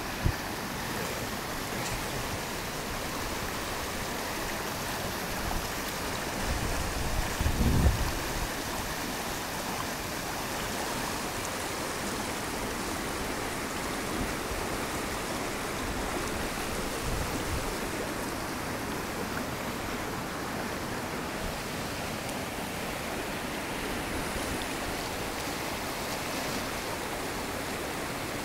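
Flood-swollen river rushing steadily over rapids, a continuous sound of fast water. A brief low rumble rises over it about seven seconds in.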